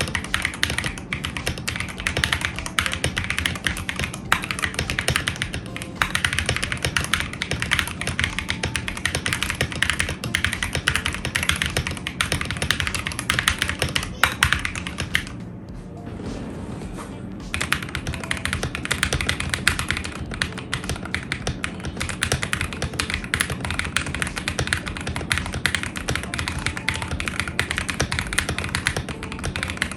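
Fast, continuous typing on a mechanical keyboard fitted with Akko CS switches, the keystrokes clacking densely with a break of about two seconds around halfway.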